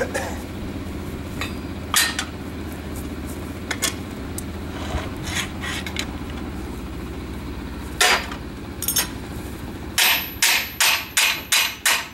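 Scattered metal clanks as a large quarter-inch steel plate is handled and laid on an anvil, then, near the end, a regular run of hand-hammer blows on the plate, about three a second, putting a hammered finish on it. A steady low hum runs underneath.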